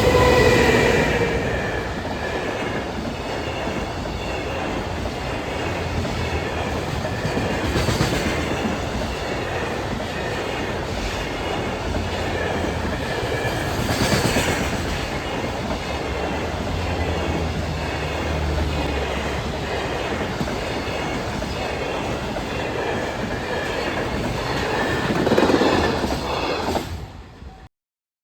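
Train running past on the rails, wheels clattering over the rail joints with a steady rumble, loudest at the start and again shortly before it cuts off suddenly near the end.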